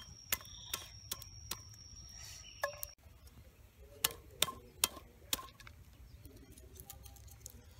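A heavy knife striking a fish on a wicker basket: a run of sharp knocks about two or three a second, stopping about three seconds in, then four more knocks a second later.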